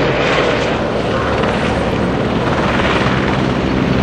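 Helicopter flying overhead, its engine and rotor running loud and steady.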